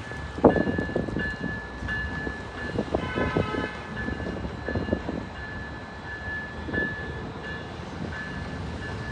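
Railroad grade-crossing bell ringing over and over, with knocks and clanks of a train rolling over the track, loudest about half a second in, and a short horn toot about three seconds in.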